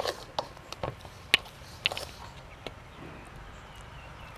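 A spoon stirring flour batter in a stainless steel mixing bowl, clinking against the metal in a few sharp, irregular knocks over the first three seconds.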